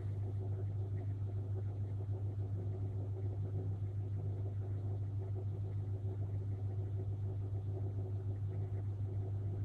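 Steady low electrical hum, an even drone with a fainter higher tone above it.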